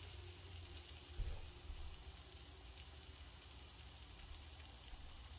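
Butter sauce with garlic and chopped onions sizzling gently in a stainless steel sauté pan, a faint, steady crackle, with a soft thump about a second in.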